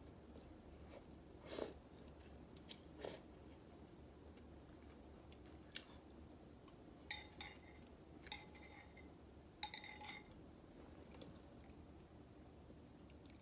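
Quiet close-up eating of ramen noodles: soft chewing and mouth sounds. A few short clicks come early on, and three brief clinks or scrapes of a metal fork against the bowl, each with a short ring, come in the second half.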